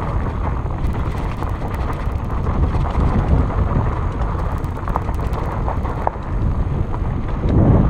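Fat bike rolling fast over a dirt forest trail, heard as a steady low rumble and buffeting from wind and trail bumps on the action camera's microphone, with scattered small clicks and rattles from the bike. The rumble swells near the end.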